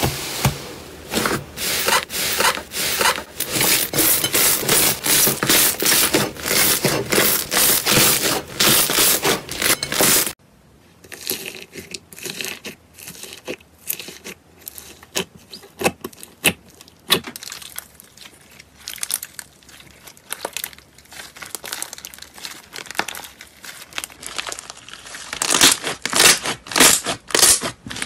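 Hands squeezing and kneading slime, with dense crackling and popping of trapped air. About ten seconds in it drops to sparser, quieter crackles as fingers press into a fluffy slime with small clay balls, and the pops grow louder again near the end.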